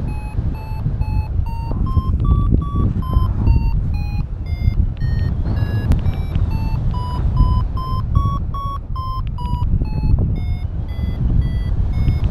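Paragliding variometer beeping in a quick train of short beeps whose pitch rises and falls with the climb rate, the climb tone that signals the glider is going up in lift. Wind rushes on the microphone underneath.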